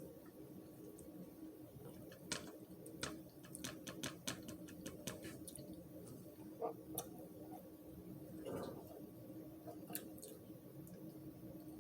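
A run of quick, sharp clicks, about a dozen over a few seconds, then a few scattered ones, over a steady low hum.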